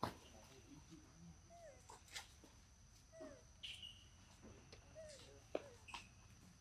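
Faint, short squeaky calls from young macaques, each dipping or curving in pitch, over quiet ground, with a few sharp clicks, the loudest right at the start and about five and a half seconds in.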